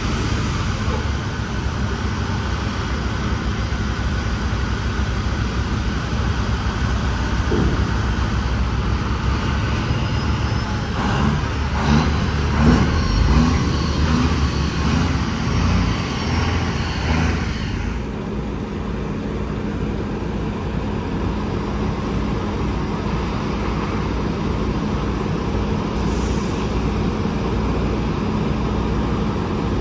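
Heavy diesel dump truck running with its bed raised as it tips out gravel, louder with a pulsing sound around the middle. About eighteen seconds in, this gives way to a steadier diesel idle with a constant low hum.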